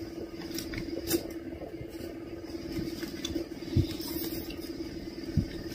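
People chewing food, a burger and spaghetti, with small wet mouth clicks and a few soft knocks, over a steady low hum.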